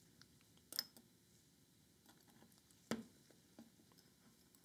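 Near silence with a few faint, short clicks, the plainest about a second in and about three seconds in: small steel clutch ball bearings being handled and set into a cordless drill's gearbox housing.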